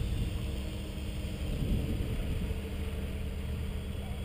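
Steady low rumble of wind buffeting the microphone, with the faint hum of a hovering quadcopter's electric motors under it.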